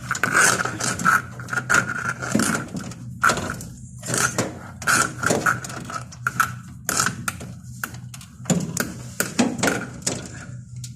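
Irregular clattering, clicking and scraping of hard parts being handled and worked loose while an Ariston washing machine is taken apart, with a steady low hum underneath.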